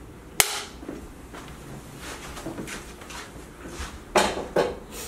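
A film-set clapperboard's sticks snapping shut once, a single sharp clap about half a second in, marking the start of the take. Two brief breathy noises follow near the end.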